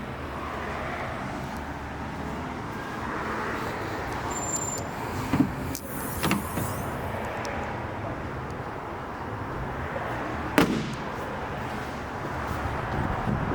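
Steady car noise with three sharp clicks or knocks, about five, six and ten and a half seconds in.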